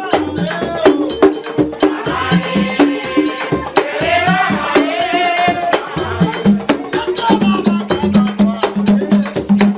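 Music with a fast, even shaker-and-percussion beat over a stepping bass line and a melody.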